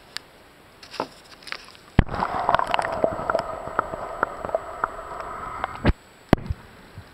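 Muffled underwater noise from a camera held under river water. About two seconds in it starts abruptly as a steady hum with scattered ticks, and it cuts off just as abruptly about four seconds later. A sharp knock follows, with faint water sloshes and clicks around it.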